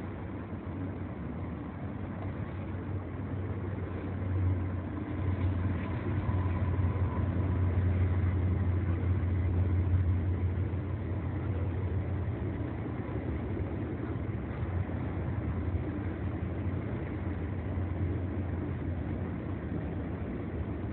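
CN freight train passing: a continuous low rumble that builds to its loudest about halfway through, then eases off slightly.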